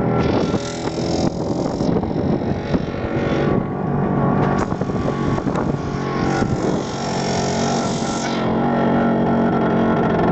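A vehicle's engine running steadily, with stretches of rushing noise over it.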